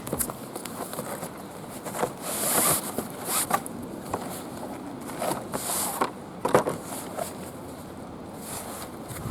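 Packaging being handled during unboxing: rustling and scraping, with several short, sharp hissing strokes a second or so apart and small clicks.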